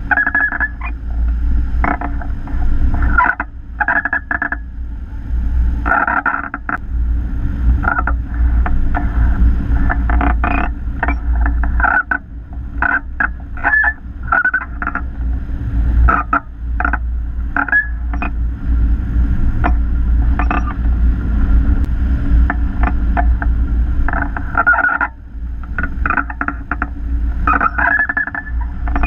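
Wind rushing and buffeting over the microphone of a camera mounted on a hang glider's wing in flight, with a flight variometer chirping in short high beeps, some rising in pitch, that come in irregular runs as the glider works the ridge lift.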